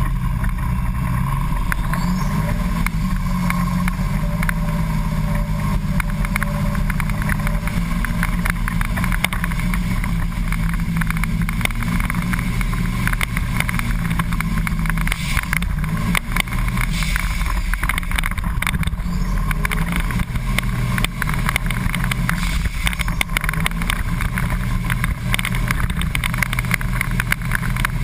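School bus engine running hard inside the cab, its pitch rising and falling, with the bus body rattling and knocking continually.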